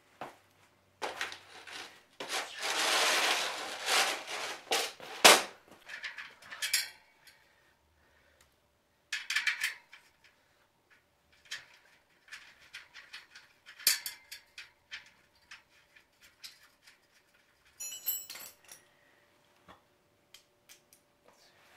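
Scattered metal clanks, knocks and scraping as galvanized steel loading ramps are handled on a concrete floor, with a rasping stretch of a few seconds early on and one loud sharp bang about five seconds in.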